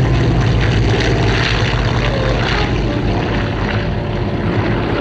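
Douglas A-26 Invader's two Pratt & Whitney R-2800 radial engines at takeoff power as it lifts off. A loud, steady low drone with a rushing propeller noise above it.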